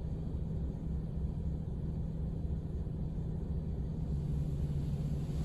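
Steady low rumble of automatic car wash equipment and spray, heard muffled from inside the car's cabin, with a constant low hum underneath.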